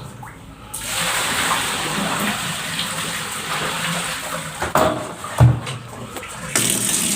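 Water poured into a freshly unclogged drain, rushing and draining away freely, with a couple of short knocks about five seconds in.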